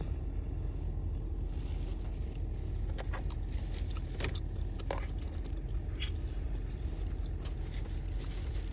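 Steady low rumble with a few scattered small clicks and taps.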